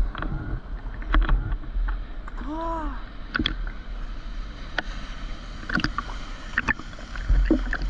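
Sea water lapping and sloshing against a waterproof GoPro housing held at the surface, with a low rumble and many small splashes and clicks as ripples strike the housing.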